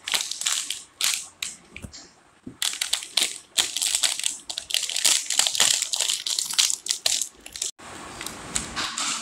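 Plastic wrapper of a packaged brownie crinkling and crackling in the hands as it is handled and pulled open. The crackling comes in irregular bursts, with a short lull about two seconds in.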